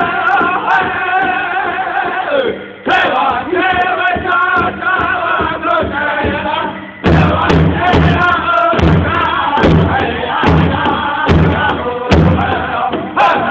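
A powwow drum group singing together in chorus around a large hide-headed drum. About seven seconds in, the drum beats come in loud and steady under the voices.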